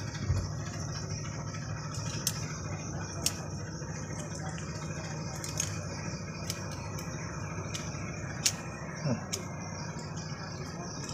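A steady low hum with a few scattered light clicks of metal engine parts being handled.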